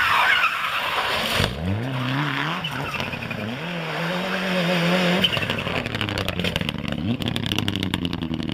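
Mitsubishi Lancer Evolution rally car's engine revving hard, its pitch climbing and dropping with each gear change. From about five seconds in, a dense crackle of sharp knocks joins the engine as the car leaves the road into the ditch.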